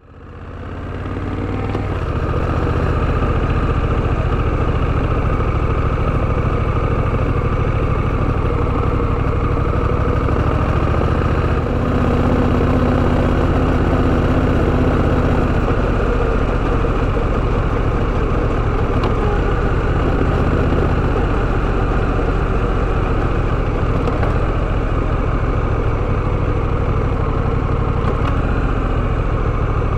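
Honda Rebel 1100's parallel-twin engine running steadily, fading in over the first couple of seconds.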